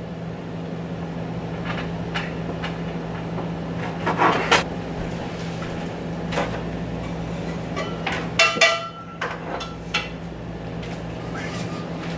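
Chef's knife cutting raw chicken breast and knocking on a plastic cutting board, a sharp knock every second or two with a few quick clusters, over a steady low hum. About eight seconds in, one louder clatter rings briefly.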